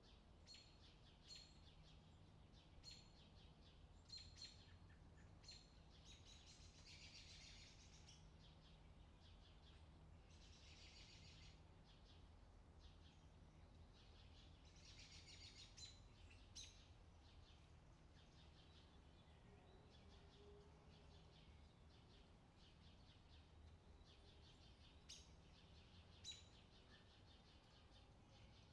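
Near silence, with faint bird chirps and trills in the background and a low steady hum.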